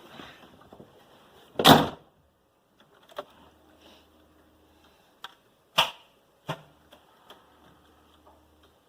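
A few separate sharp knocks and clunks. The loudest comes about two seconds in, and others follow around three, six and six and a half seconds in, with small ticks between them.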